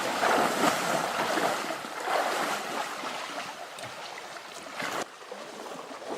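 Trout stream flowing, a steady watery hiss, dropping suddenly in level about five seconds in.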